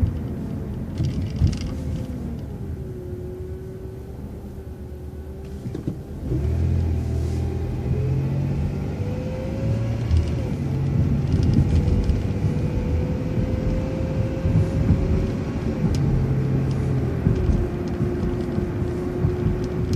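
City transit bus running quietly while stopped. About six seconds in it pulls away and the engine gets louder under acceleration. A whining tone climbs and then drops back twice as it gathers speed.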